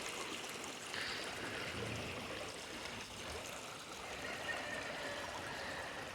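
Rain-swollen runoff water rushing steadily down a creek after a night of heavy rain.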